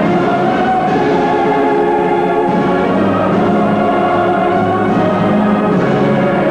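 Choir singing long held notes over an orchestra.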